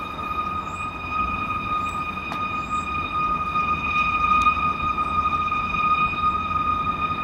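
A loud, steady drone: one unchanging high tone with several overtones over a low rumble, which the recorder takes to be coming from the sky. The source is not identified.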